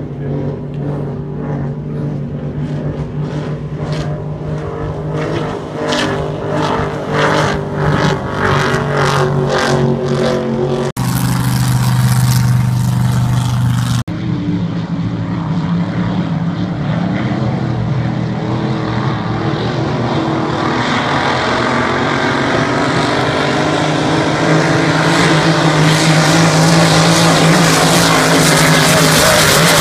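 Racing powerboat engines running at speed, a steady low drone that grows louder over the last few seconds as the boats come closer. The sound changes abruptly twice, about eleven and fourteen seconds in.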